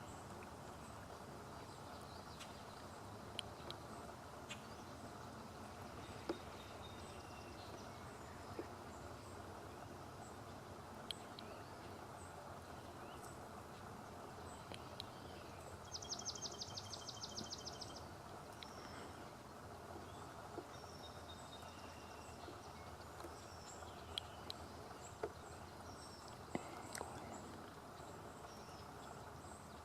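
Faint outdoor natural ambience: a steady low background hiss with scattered small bird chirps and ticks. About 16 seconds in, a bird gives a fast trill of repeated notes lasting about two seconds.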